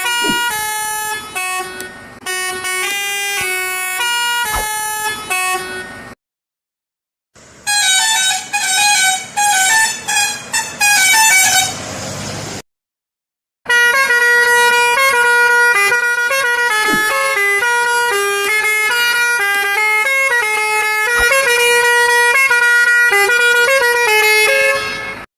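Musical multi-tone vehicle horns ('variety horns') playing tunes note by note. The first tune breaks off suddenly, a faster run of notes follows, and after another sudden cut a longer melody plays on.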